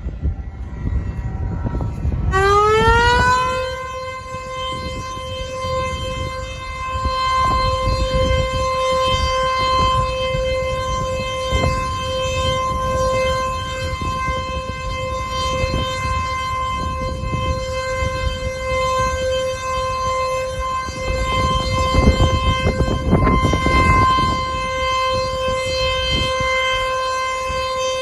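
Dam discharge warning siren, warning that water is being released from the dam upstream. It winds up with a rising pitch about two seconds in, then holds one steady wail.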